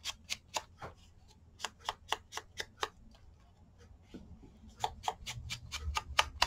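Quick light taps, about four a second in three short runs, as a round ink blending tool is dabbed against the edges of a small paper ticket to ink them. A low rustle of handling joins in near the end.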